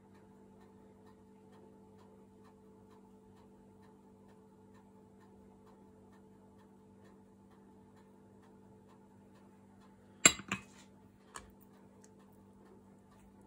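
A glass jug set down on a hard kitchen surface, two sharp clinks about ten seconds in and a lighter knock about a second later, over a steady low hum and faint regular ticking.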